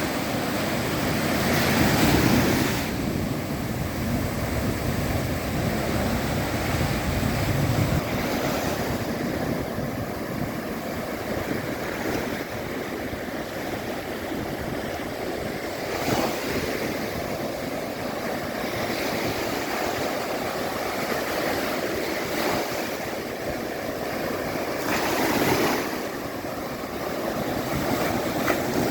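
Sea waves breaking and washing on the shore: a steady rush of surf that swells into louder surges every several seconds.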